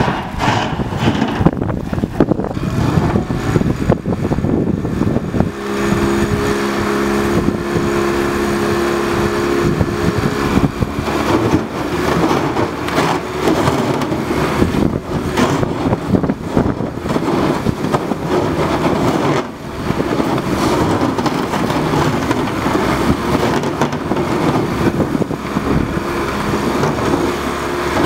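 Outboard motor of a pontoon boat running hard as the boat drives through thin river ice, with rough crackling and gusty rumble throughout. The engine's steady drone stands out clearly for several seconds about a quarter of the way in.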